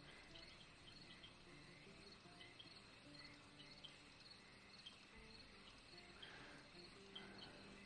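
Near silence with a faint swamp ambience track: insects chirping, with scattered faint short tones.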